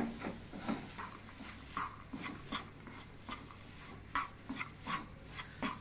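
Plastic spatula scraping and tapping a nonstick pan while crumbly khoa and nut stuffing is stirred: short, uneven scrapes about every half second.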